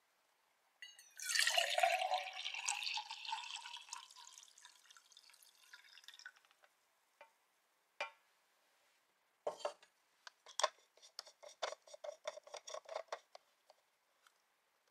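Water poured from a plastic measuring cup into a stainless steel YETI Rambler 12 oz vacuum-insulated bottle, the filling sound rising in pitch as the bottle fills. A single tap follows, then a run of quick clicks and scrapes as the bottle's screw cap is threaded back on.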